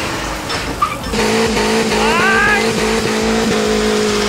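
A car burnout: an engine held at high revs over the steady noise of spinning, smoking tyres, with a brief rising whine about two seconds in. Background music plays underneath.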